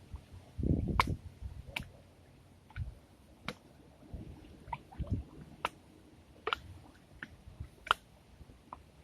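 Irregular sharp clicks and ticks, about one or two a second, mixed with a few soft low thuds.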